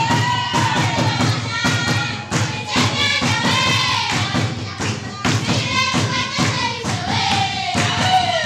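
A group of children singing a song together, with claps and the thuds of bare feet stamping and jumping on the floor as they dance.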